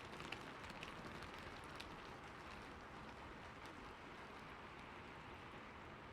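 Steady, soft rain falling, with a few individual drops ticking in the first couple of seconds.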